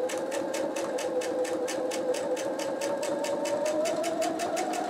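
Electric sewing machine stitching steadily through pieced quilt fabric: a motor hum with the needle's rapid, even ticking. The motor's pitch rises slightly near the end as it speeds up.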